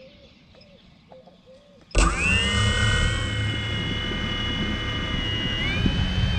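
FPV quadcopter's brushless motors and propellers spinning up suddenly about two seconds in, then a steady, high multi-tone whine with propeller wash, the pitch stepping up near the end as the throttle rises. Faint bird calls are heard before the motors start.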